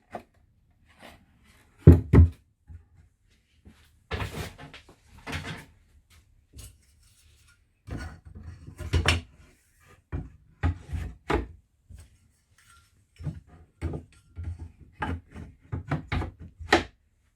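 Irregular wooden knocks, clunks and short scrapes as parts of a cedar beehive super box are handled and fitted together. The loudest knock is about two seconds in, and a quicker run of knocks follows in the second half.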